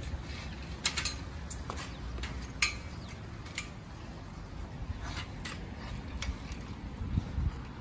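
Irregular metallic clicks and rattles from an old roadster bicycle as it is mounted and ridden, about eight sharp ticks over a low steady rumble.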